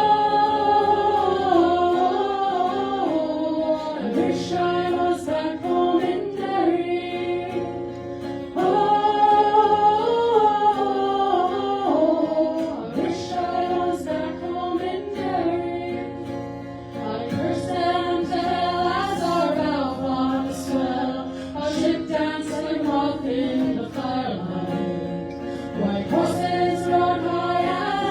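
A group of voices singing together in harmony, several parts moving in parallel over sustained low notes.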